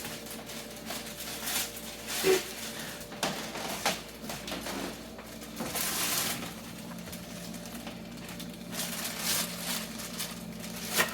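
Kitchen handling sounds: scattered short rustles and light knocks, with a longer swish about six seconds in, over a faint steady hum.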